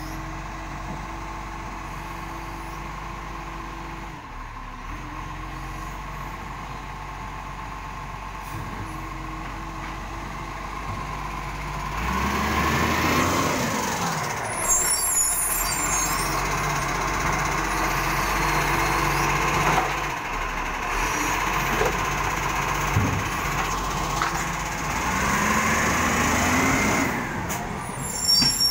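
Side-loading garbage truck's diesel engine idling steadily, then getting louder at about 12 s in and rising and falling in pitch as the truck pulls up and moves off again. Short air-brake hisses come at about 15 s in and again near the end.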